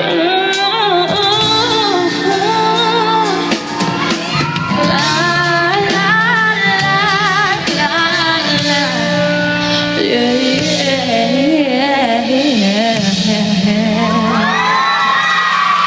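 Live pop ballad: a woman sings wavering wordless runs over sustained keyboard and band chords, with the echo of a large hall, and holds one long high note near the end.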